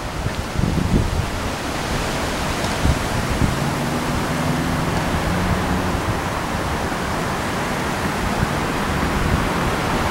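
Steady rushing wind noise outdoors, with a faint low hum briefly in the middle.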